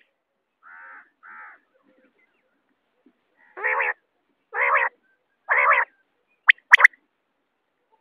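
Recorded common quail calls: two faint notes about a second in, then three louder notes about half a second long and about a second apart, followed by two very short, sharp notes near the end.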